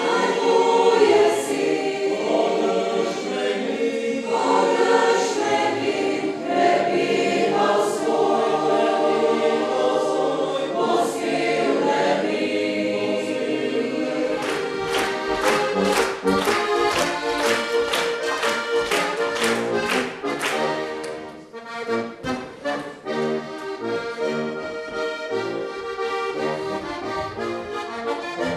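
Mixed choir of men's and women's voices singing. About halfway through, sharp even strokes about three a second join the singing; after a short dip near the end, lively folk music led by an accordion takes over.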